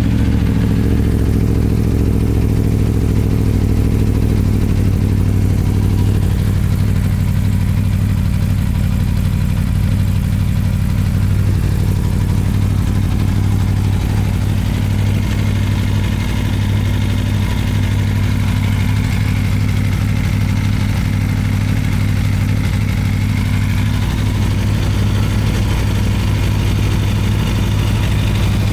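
2016 Aprilia Tuono V4 1100 Factory's 65-degree V4 engine idling steadily.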